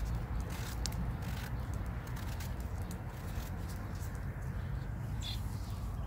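Outdoor ambience: a steady low rumble with scattered light clicks, and a brief high chirp about five seconds in.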